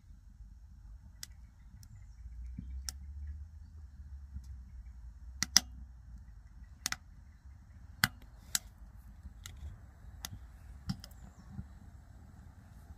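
Burning wood crackling, with about ten sharp, irregular pops and cracks over a faint low rumble.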